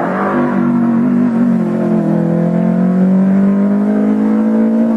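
Hill-climb race car's engine at high revs, driven hard along the course. There is a drop in pitch from an upshift about a second and a half in, then a steady note that slowly rises as the car pulls away.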